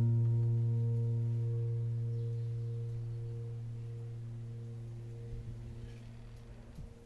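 A single low note from the background piano music, struck just before, ringing on and slowly fading out.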